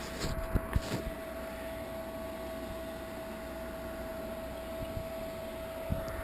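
A steady machine hum with a constant hiss and one held mid-pitched tone, with a few sharp knocks in the first second.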